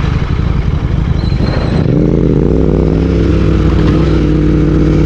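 Royal Enfield Continental GT 650's parallel-twin engine through a Red Rooster aftermarket exhaust, heard onboard while riding. It sounds rough for the first two seconds, then settles into a clear, steady exhaust note that dips briefly and then holds.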